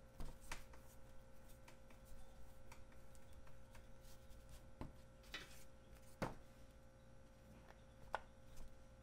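Faint, scattered soft taps and clicks of hands rolling a log of egg boro dough on a plastic cutting board, with a sharper click near the end as a plastic dough scraper is pressed onto the board.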